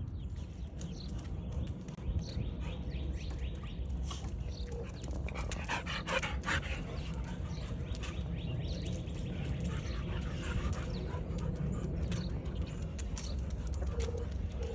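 American bully dog panting, with scattered short clicks and scuffs and a denser run of them about five to seven seconds in, over a steady low rumble.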